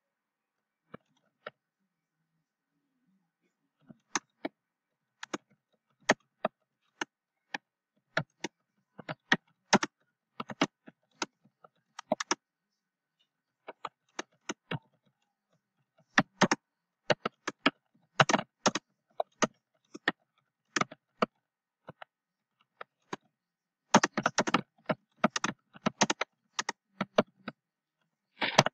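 Typing on a computer keyboard: irregular keystroke clicks in quick flurries broken by short pauses, densest in two runs in the second half.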